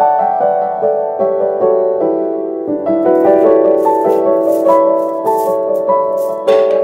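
Background piano music playing a gentle stepping melody, with a rattling, shaker-like noise joining about three seconds in.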